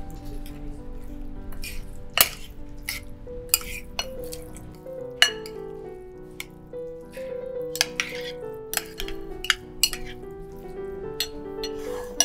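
Metal spoon clinking and scraping against a ceramic baking dish while tossing potatoes in sauce, a dozen or more irregular clinks, the sharpest about two and five seconds in, over background music.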